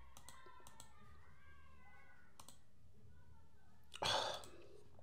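A few faint clicks from working a computer, over quiet room tone, with a short rush of noise about four seconds in.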